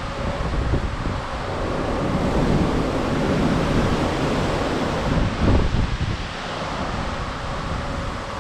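Wind buffeting the microphone over the rush of open-sea swells against a moving cruise ship. The gusts build to their loudest in the middle and ease off about six seconds in.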